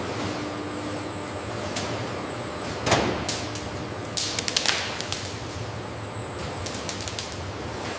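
Factory machinery running steadily, with scattered sharp clacks and knocks, a cluster of them about four to five seconds in.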